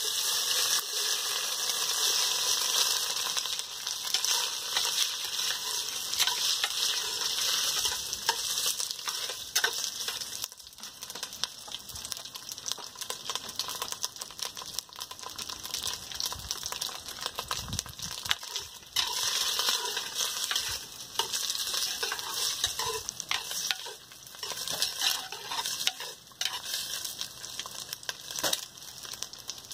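Sliced sausage frying in hot oil in a clay pot, with a steady sizzle that is loudest just as the slices go in. A spoon scrapes and clicks as it stirs them.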